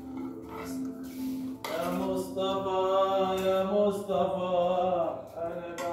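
Singing voice holding long, steady notes, strongest from about two seconds in, with a few clinks of cutlery on dishes.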